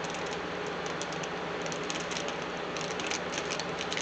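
Irregular small clicks and crinkles of motherboard-box packaging and accessories, such as bagged SATA cables, being handled, over a steady low hum.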